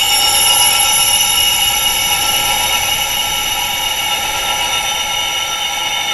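Layered wind chimes ringing: many high metal tones sounding together and held steadily, with no single strike standing out. The chimes are tuned to the pitch range of tinnitus.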